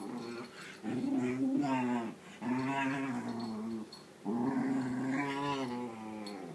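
Whippet moaning and grumbling at a Staffie puppy in three long, wavering, drawn-out calls, a dog telling its playmate off.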